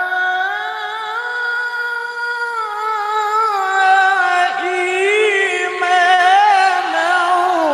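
A male qori reciting the Quran in melodic tilawah style into a microphone: long held notes with wavering, trilled ornaments. There is a brief break about halfway, a higher, more ornamented passage after it, and the line falls in pitch near the end.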